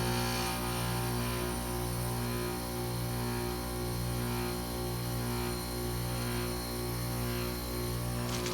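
Trane XR14 3-ton heat pump outdoor unit running in a defrost cycle: a steady compressor hum with a low electrical buzz and a slight slow waver in level.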